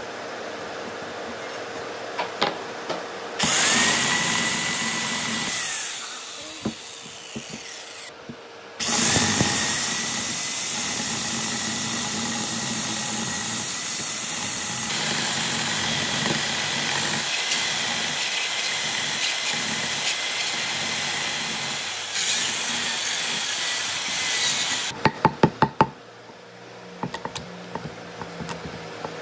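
A chainsaw starts about three seconds in, its motor rising to a steady high whine, and runs while cutting shallow kerfs into a weathered log, with a brief break near nine seconds. Near the end it stops and a quick series of sharp knocks follows as a chisel chips out the wood between the cuts.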